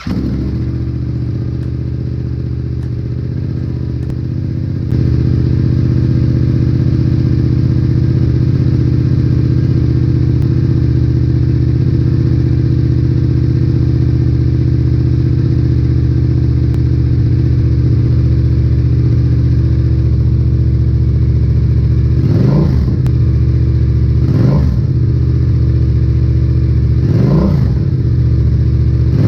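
Yamaha XSR700's 689 cc parallel-twin engine idling through a Black Widow aftermarket exhaust. Its level steps up about five seconds in, and near the end come three quick throttle blips, each revving up and dropping back to idle.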